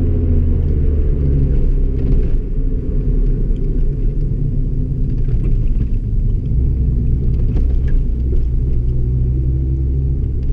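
Volkswagen Polo 6N2 GTI's four-cylinder engine running on the move, with a heavy low rumble and engine tones that drift slightly in pitch.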